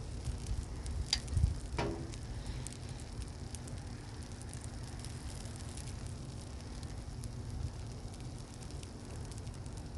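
Food sizzling on a hot propane flat-top griddle over the steady low rush of the burners, with a couple of sharp clicks about a second in.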